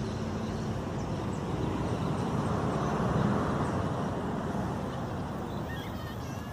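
Road traffic noise from city streets, a steady wash of engines and tyres, with one vehicle passing that swells up and is loudest about three seconds in before fading.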